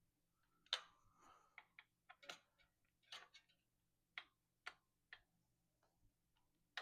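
Faint, irregular light clicks and taps, about a dozen, from hands handling mountain bike parts and the hydraulic brake hose.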